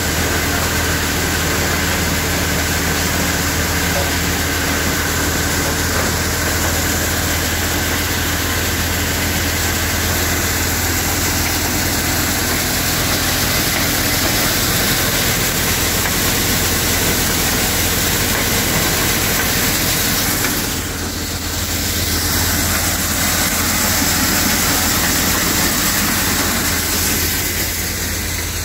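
Wishavkarma multi-crop thresher running steadily under load as crop is fed in, with a steady low drone beneath the threshing noise. The level dips briefly about three-quarters of the way through.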